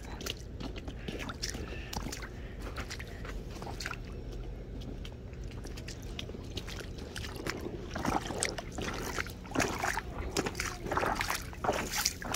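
Rubber boots sloshing and splashing step by step through a shallow muddy meltwater puddle, over a steady low rumble. The splashing steps get louder and come more often in the second half.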